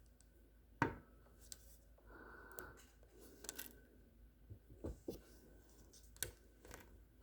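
Hands handling and opening a small package: a sharp knock about a second in, then brief rustling of packaging and a few light clicks and taps.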